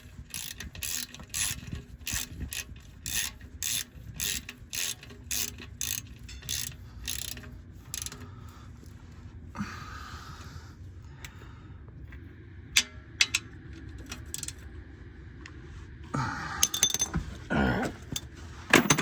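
Hand ratchet wrench clicking steadily, about three clicks a second, as a fastener on the car is tightened. The clicking stops after about eight seconds, and a few knocks and scrapes of tools follow near the end.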